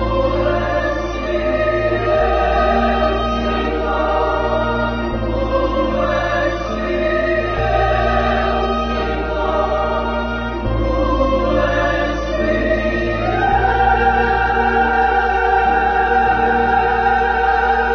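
Choral music: a choir singing long, held chords over sustained accompaniment, the chords changing every two to three seconds, with the voices stepping up in pitch about two-thirds of the way through.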